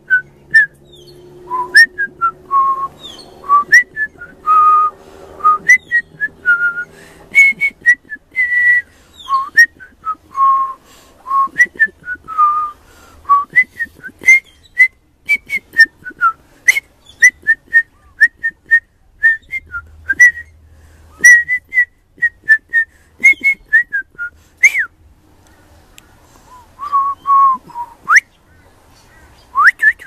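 Young pied butcherbird singing: a long run of short, clear, fluted notes, many with quick upward slides, delivered in phrases with a short pause near the end.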